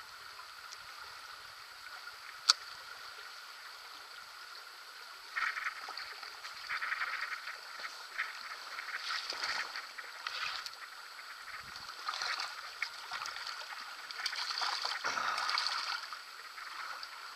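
Forest stream running over stones, with a single sharp click about two and a half seconds in. From about five seconds in, a hooked brown trout splashes irregularly at the surface as it is played toward the landing net.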